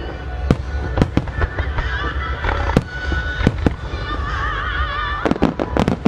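Star mine fireworks display: shells bursting in sharp bangs, spaced out at first, then a rapid volley of bangs near the end.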